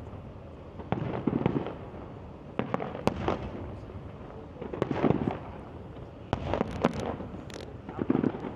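Aerial firework display: shells bursting in clusters of sharp bangs with a low rumble, a new group every second or two.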